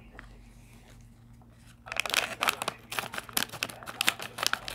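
A crinkly metallized plastic snack bag of Pringles sour cream and onion chips being torn open and crinkled by hand. After about two seconds of quiet, a fast run of sharp crackles and rips starts and carries on to the end.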